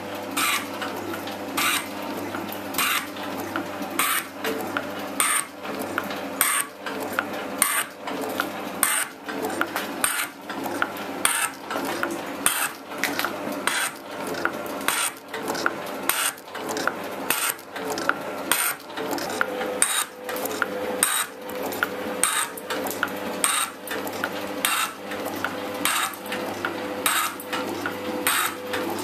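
Elliott 10M metal shaping machine running, its ram going back and forth as the tool cuts aluminium bronze, with a sharp clack at each stroke in a steady rhythm over the machine's hum.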